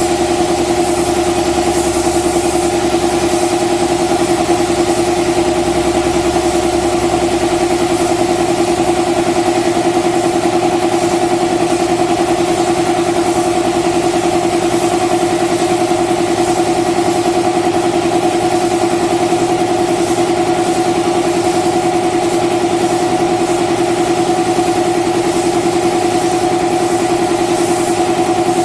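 Air compressor running steadily, a loud, even motor hum with a fast chugging pulse as it feeds a paint spray gun. A brief hiss of spraying air comes in about two seconds in and again near the end.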